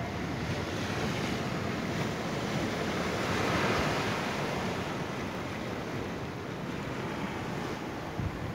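Atlantic surf washing on a rocky shore, a steady rush that swells to a peak about three to four seconds in and then eases, with wind buffeting the microphone.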